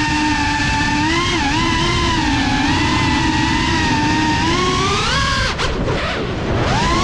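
FPV quadcopter's brushless motors whining steadily, the pitch wavering with the throttle. About five seconds in the pitch rises as the drone punches up to climb, then falls sharply as the throttle is cut and climbs back near the end.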